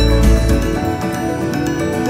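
Background music of calm, held notes; a deep bass note drops out a little before halfway.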